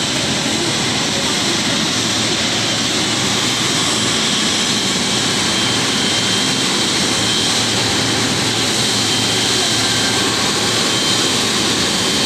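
Twin-engine jet airliner taxiing, its turbofan engines running at taxi power: a steady rushing noise with a thin high whine.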